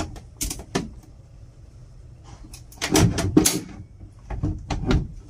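A fold-out table panel in a capsule-hotel pod being worked open by hand: a series of clicks and knocks, loudest in a cluster about three seconds in and another near the end.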